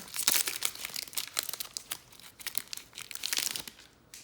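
Trading card pack wrapper being torn open and crinkled by hand, in two spells of dense crackling.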